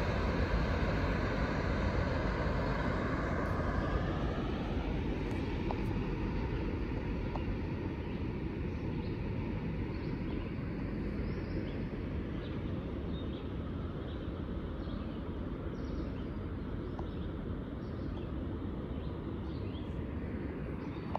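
Norfolk Southern freight train running away down the main line: a high whine over its rumble for the first four seconds or so, then a steady low rumble that slowly fades.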